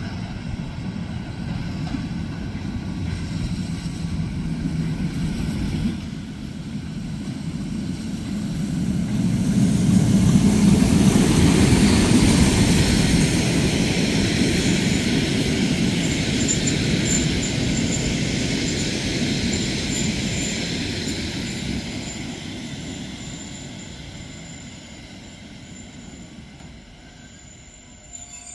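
Narrow-gauge steam train, 2-10-2 tank locomotive 99 7240-7 with its coaches, running past: a rumble of wheels on rail that swells as the train goes by, then fades as it pulls away. A thin high squeal comes in over the second half.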